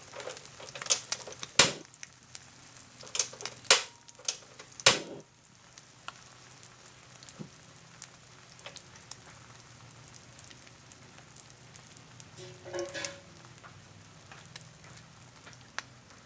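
Duck egg and catfish roe mixture frying in hot oil in a pan. Sharp pops and crackles of spattering oil over the first five seconds settle into a quieter, steady sizzle.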